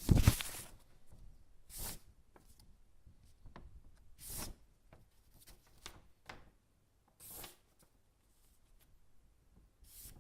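Household objects handled to make sound effects: a loud knock at the start, then short rustling swishes every two to three seconds with faint clicks between them.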